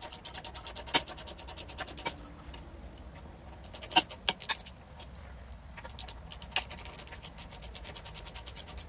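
Ratchet wrench clicking in rapid, even runs as the handlebar riser clamp bolts are turned out, with a few sharp metal knocks of tool on bars in between.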